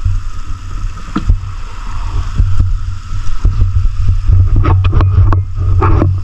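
A small boat's engine running steadily, with several sharp knocks and clatters over it, most of them near the end.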